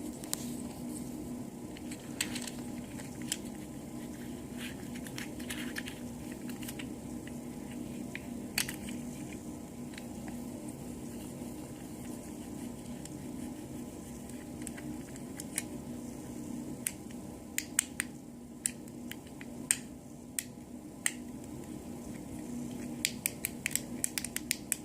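Small plastic fidget cube being clicked by hand: sharp, irregular clicks, coming in quick runs in the second half, over a steady low hum.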